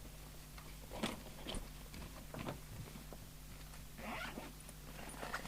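Scattered clicks, knocks and rustles of equipment and leads being handled, over a steady low electrical hum.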